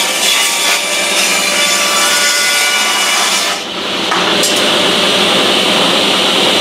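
Table saw ripping along a mahogany board to cut off its rough edge, the blade chewing through the wood for about three and a half seconds. After the cut the saw runs free with a steady high whine, whose pitch starts to drop near the end as it winds down.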